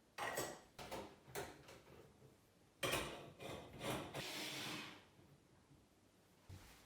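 Objects being handled: several sharp knocks and clatters in the first second and a half, a louder clatter about three seconds in, then a short rustling, scraping noise lasting about a second.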